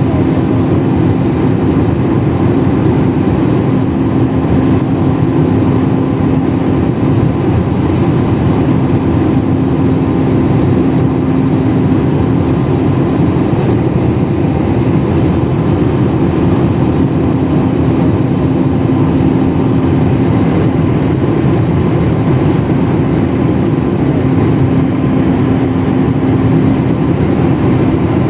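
Airliner cabin noise: the jet engines and rushing air make a steady loud drone with a constant low hum running through it.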